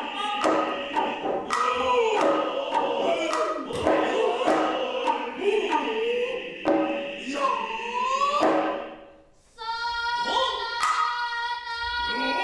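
Noh chorus chanting to sharp, repeated strikes of the hand drums. About nine seconds in the sound drops briefly, and then a long, steady high tone is held.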